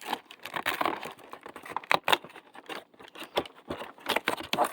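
Fidget toy advent calendar packaging being handled and opened, with irregular crinkling and crackling and small clicks.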